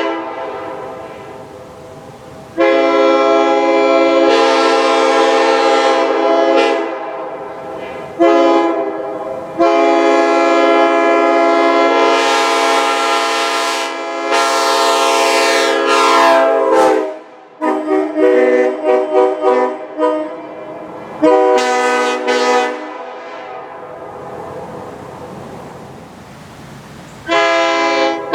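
Multi-chime train air horns sounding full chords in long blasts of several seconds, each trailing off in echo before the next, with a run of about eight short quick toots near the middle.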